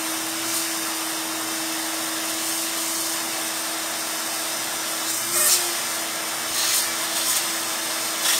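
Electric hair clippers running with a steady buzz while a head is shaved, getting louder for a moment a few times in the second half.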